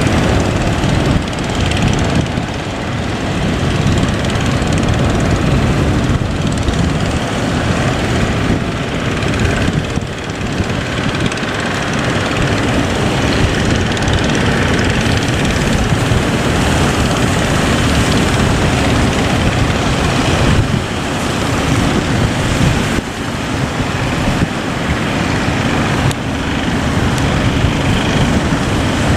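Boat engine running steadily under way, mixed with the rush of water and waves against the hull.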